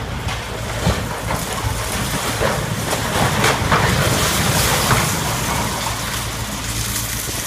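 Samsung hydraulic excavator running while a concrete and steel entrance canopy is torn down and collapses: a steady engine drone under a dense run of crunching, cracking and scraping rubble that is heaviest about three to five seconds in.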